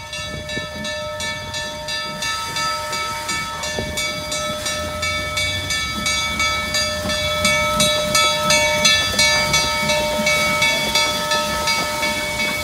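Black Hills Central Railroad #110, a Mallet tank steam locomotive, moving past with quick, even exhaust beats, about four to five a second, and a steady high tone underneath. It gets louder through the middle as it draws close, then eases near the end.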